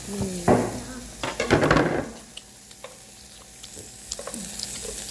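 Pork belly sizzling on a grill with scattered small pops. Louder bursts of noise in the first two seconds sit over the sizzle.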